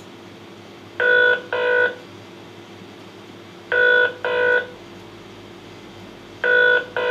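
Telephone ringing tone as a caller hears it, recorded from a real telephone: a double ring of two short tones close together, then a pause, heard three times about every two and a half seconds.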